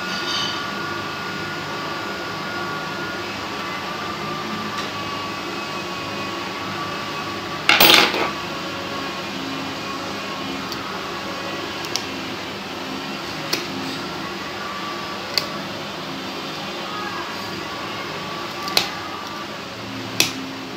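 Nail nippers cutting into a thick, curled toenail: a loud crack about eight seconds in, then single sharp snips every second or two, over a steady hum.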